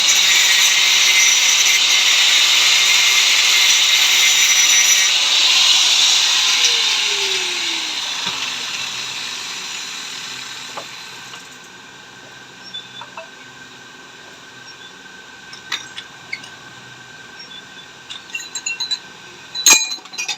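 Motor-driven cutting tool running and cutting into the metal body of a motorcycle mono-shock absorber to open its crimped end; about six seconds in it is switched off and winds down with a falling hum. Light metal clicks and clinks of the part being handled follow, the loudest near the end.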